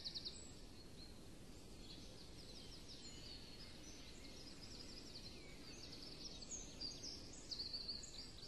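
Faint birdsong: many short, high chirps scattered through, over a low hiss.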